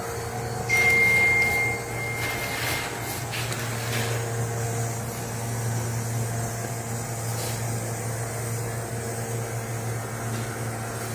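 A steady low mechanical hum. Near the start, a thin high steady tone sounds for about two seconds, and a few faint clicks come and go.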